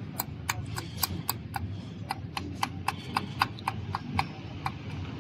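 A steady run of short, sharp taps, about four a second, that stops near the end, as parts of a Toyota 2L diesel injection pump are worked by hand on the bench. A low hum runs underneath.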